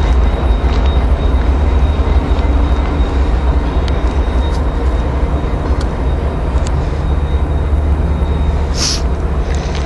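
Diesel locomotives on a freight train rumbling past at close range: a steady, deep, heavy rumble, with a short hiss about nine seconds in.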